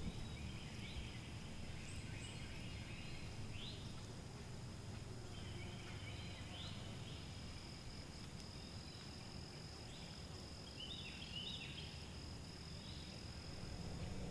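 Faint woodland ambience: a steady high-pitched insect drone with scattered short bird calls and a low background rumble.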